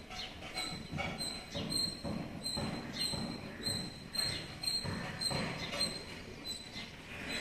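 Kittens and their mother cat scuffling and play-fighting on a hard floor: a run of soft, irregular bumps and rustles, about two or three a second. A faint high-pitched tone pulses steadily in the background.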